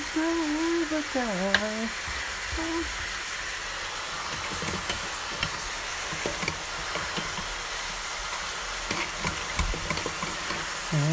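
Potato fries deep-frying in hot oil in a deep fryer basket: a steady sizzle with scattered small pops and crackles.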